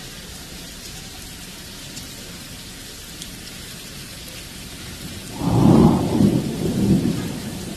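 Thunderstorm: a steady downpour, then a loud crack of thunder about five seconds in that rumbles and fades over a couple of seconds.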